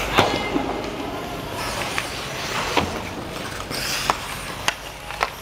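Ice hockey sticks clacking on puck and ice, about six sharp knocks spread over a few seconds, over the scrape and hiss of skates on the ice in an indoor rink, with a brief skate-scrape hiss about four seconds in.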